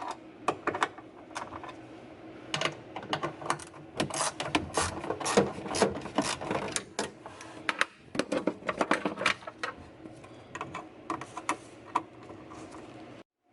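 8 mm ratchet wrench with an extension clicking in short irregular runs as two small 8 mm bolts are unscrewed.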